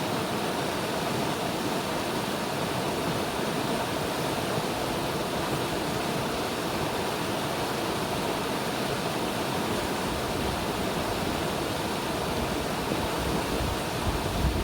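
River water rushing and flowing steadily, an even unbroken noise, with a brief low rumble near the end.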